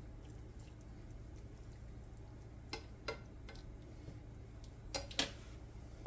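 A stirring utensil clinks against a deep skillet a few times, sharp clicks in two pairs about a second and a half apart, as a sauce is mixed, over a steady low hum.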